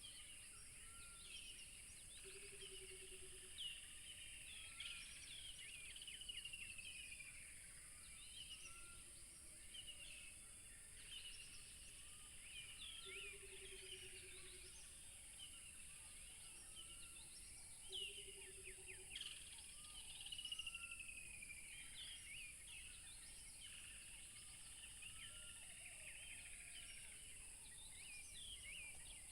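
Faint chorus of many wild birds chirping and whistling, with short notes and down-slurred calls overlapping throughout, over a steady high hiss. A low, rapidly pulsed note of about a second sounds several times, every few seconds.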